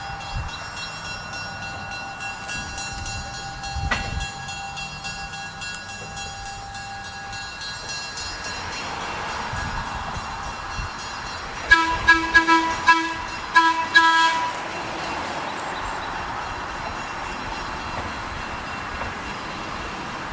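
A GE 65-ton diesel switcher runs along with a steady engine hum and rolling noise. A little past halfway its horn sounds a series of blasts, a few short ones and then a longer one.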